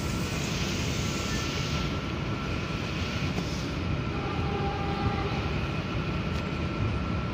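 PNR commuter train running, heard from inside a crowded passenger car: a steady rumble, with a faint thin whine through it and a hiss that dies away about two seconds in.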